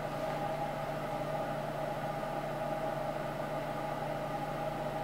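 Steady hum of a small motor running, with a few held tones and no change in level.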